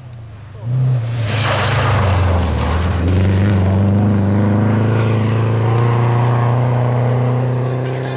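Rally car engine running hard at high revs, cutting in loudly about a second in and holding a fairly steady pitch as the car approaches, with a hiss of tyres on the snow-covered road.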